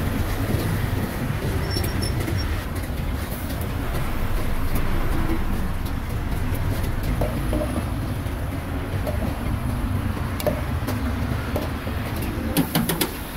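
Steady low rumble of road traffic, with a quick run of sharp clicks near the end.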